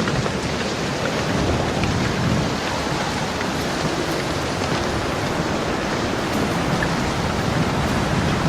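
Steady rain falling, with low rolling thunder rumbling underneath and swelling now and then.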